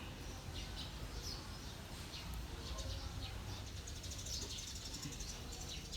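Faint short bird chirps over a steady low hum.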